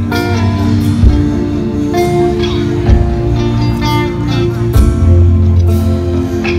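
Live amplified band of acoustic guitar, electric bass and drum kit playing a slow song, with sustained chords and occasional drum hits.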